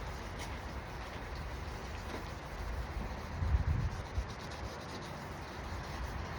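800-grit sandpaper scrubbing back and forth over a plastic headlight lens, a steady rubbing rasp, with a brief low thump a little past halfway.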